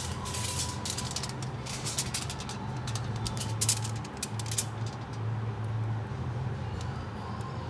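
Small fountain pen parts being handled and worked with tools: clusters of quick, sharp clicks and scrapes for about five seconds, then they stop. A steady low hum runs underneath throughout.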